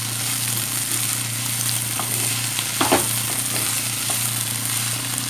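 Sliced onions and slit green chillies sizzling as they fry in oil in a pan, stirred with a wooden spatula that knocks against the pan a few times, most sharply about three seconds in, over a steady low hum.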